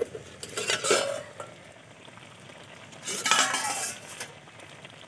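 A spatula stirring and scraping potato and eggplant pieces in a pan over a light sizzle, in two bouts: one at the start and one about three seconds in.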